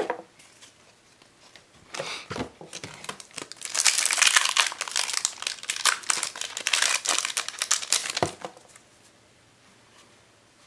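Foil wrapper of a Yu-Gi-Oh! booster pack being torn open and crinkled by hand, a dense crackle lasting about five seconds in the middle, after a few lighter rustles.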